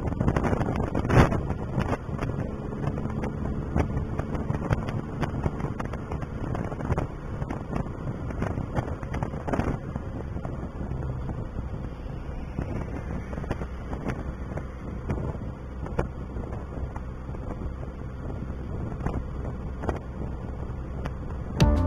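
A vehicle's engine running steadily while driving, with wind buffeting the microphone and road rumble; a single sharp knock about a second in.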